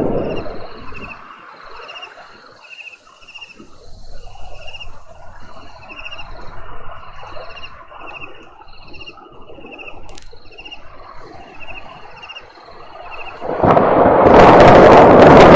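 High, pulsed chirps repeating about twice a second over faint background noise. About 13 seconds in, a loud rumble of thunder breaks in and keeps going.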